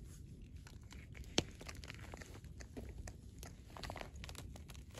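Hands plucking feathers from a freshly killed chicken: a run of small, irregular rips and crackles, with the carrier bag underneath crinkling. One sharp click comes about a second and a half in.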